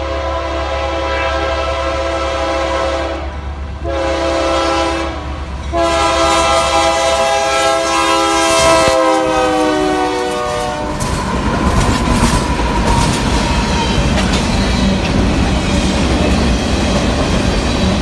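Union Pacific GE AC44CW locomotive's air horn sounding for a grade crossing: three blasts, the last and longest dropping in pitch as the locomotive passes. Then the steady rumble and clatter of the freight cars rolling by.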